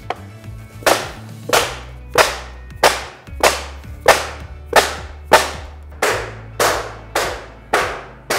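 Evenly spaced hammer blows, about thirteen of them, one every 0.6 s or so, each with a short ring, driving roll pins in to close the splice joint between two sections of a door sill. Low background music runs underneath.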